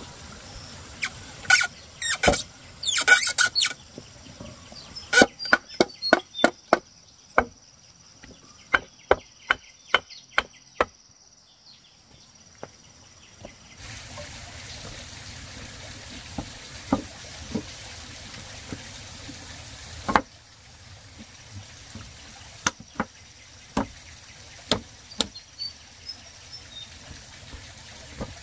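A series of sharp knocks, first a quick cluster and then runs of evenly spaced strikes about two a second, with a steady rushing noise lasting about six seconds in the middle.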